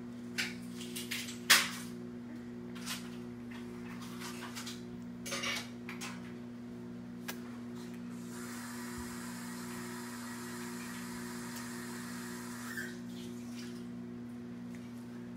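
Light clinks and knocks of a baby's hands against a metal-lined bowl and high-chair tray, scattered through the first six seconds, the loudest about a second and a half in. From about eight seconds in, a steady hiss lasts about four seconds, over a constant low hum.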